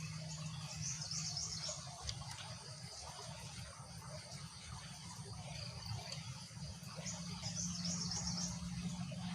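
Faint outdoor background between junglefowl calls: two short spells of high-pitched chirping trills, about a second in and again about seven seconds in, over a low steady hum.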